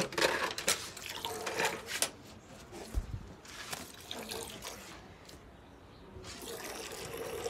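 Milk squirting in short spurts into milk in a steel bucket as a cow is milked by hand.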